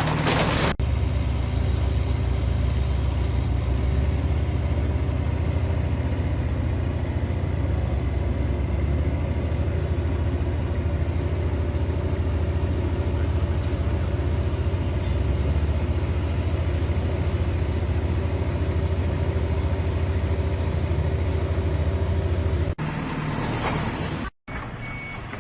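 A large engine running at a steady pace, a low rumble with fixed tones, which cuts off near the end.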